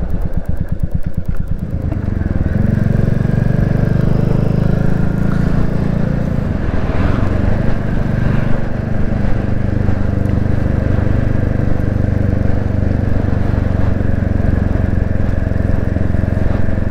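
Royal Enfield Classic 350's single-cylinder engine at low revs with distinct, evenly spaced firing pulses. About two seconds in it picks up as the bike pulls away, then runs steadily under load for the rest of the ride.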